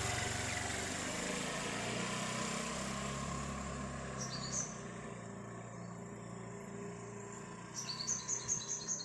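A motor scooter's engine fades steadily as it rides away, leaving a low hiss. Birds chirp briefly a few seconds in, then in a quick run of chirps near the end.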